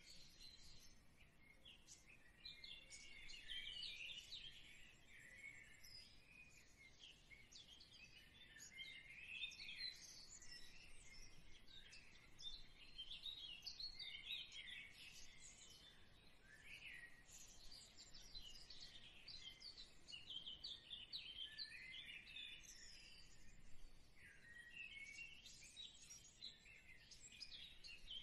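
Faint, continuous chirping of many small birds, with short high calls overlapping one another.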